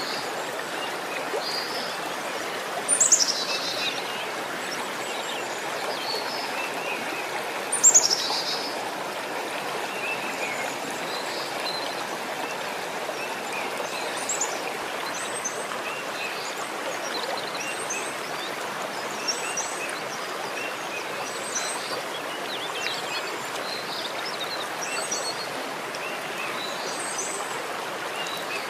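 A steady rushing like a running stream, with birds chirping throughout. Two louder calls fall in pitch, about three seconds and eight seconds in.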